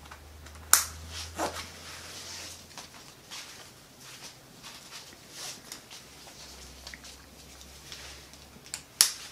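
Backpack buckles clicking shut: a sharp click about a second in as the chest strap is fastened, and another near the end as the hip belt is clipped, with nylon webbing and fabric rustling between them as the straps are adjusted.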